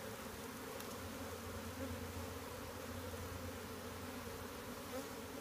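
Steady drone of many honeybees flying about an opened hive, stirred up as their frames are moved from a nuc box into a new hive body.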